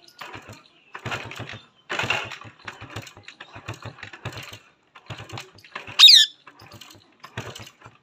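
Male Indian ringneck parakeet chattering in a run of quieter clicking, muttering bursts, then giving one loud, sharp whistle that falls steeply in pitch about six seconds in.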